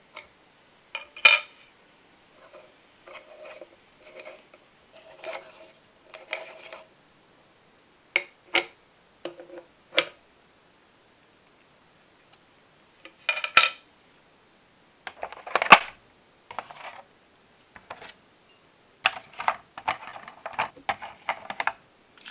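Small metal parts of an all-metal V-twin engine model kit being handled and fastened. There are sharp metallic clicks and clinks, softer scraping as a hex key turns screws, and near the end a quick run of small clicks and clinks.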